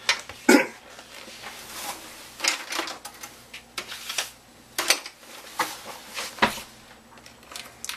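Kitchen handling sounds: a few sharp knocks and clicks as a slice of bread and utensils are set down on a wooden cutting board and counter, the loudest about half a second in.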